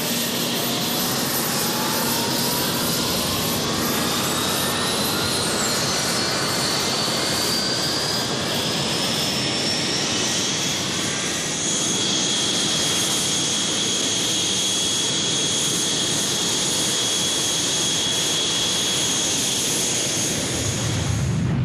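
Jet aircraft engine spooling up: its whine climbs steadily in pitch for about ten seconds, then holds as a steady high whine over the rush of the engine.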